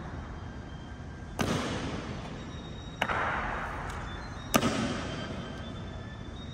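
Three sharp impacts on the marble floor from the honor guards' ceremonial drill, about a second and a half apart. Each one rings on in the echo of the large stone hall.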